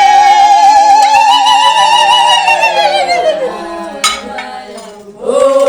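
A high woman's voice singing one long held note with strong vibrato, rising slightly and then falling away over about three seconds; a sharp click about four seconds in, then a short sung phrase near the end.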